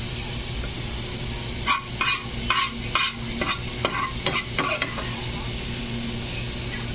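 Utensil scraping and clinking against a ceramic dish about eight times in quick succession over some three seconds as barbecue sauce is spooned over the ribs, over a steady background hiss.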